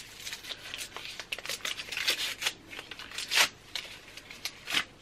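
Wrapping on a small gift package being torn open and crinkled by hand: a quick, irregular run of crackles and rustles, with a couple of louder rips past the middle and near the end.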